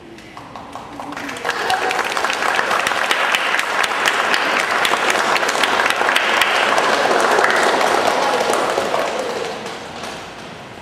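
Guests applauding: many hands clapping, building up over the first second or two, holding steady, then dying away near the end.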